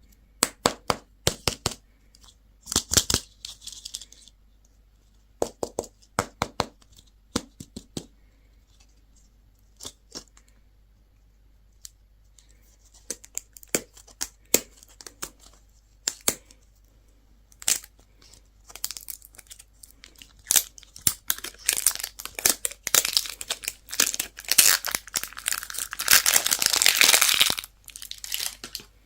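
Plastic and foil candy wrappers being handled and torn open: sharp clicks and crackles, becoming a dense stretch of crinkling and tearing near the end.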